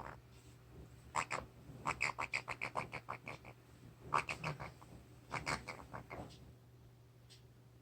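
Pionus parrot making soft, quick clicking chirps in several short runs, with food in its beak; the sounds stop near the end.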